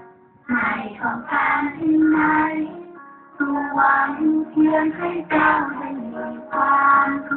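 A group of children singing a song together, with short pauses between phrases near the start and about three seconds in.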